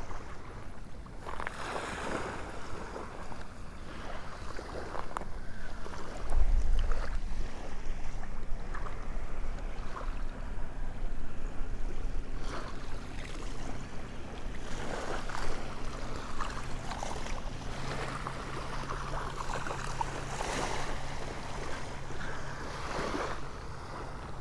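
Wind buffeting the microphone over small waves lapping at the shoreline, in gusts that come and go. A low steady drone, like a boat motor out on the water, sets in a little under halfway through.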